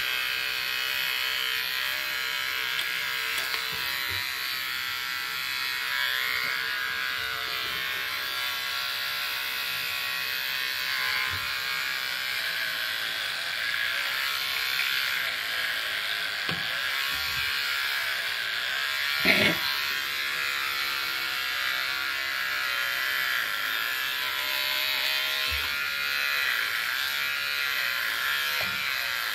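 Corded electric hair clippers with a guard comb attached, running steadily as they cut through hair on top of the head, their pitch wavering slightly now and then. One brief louder sound about two-thirds of the way in.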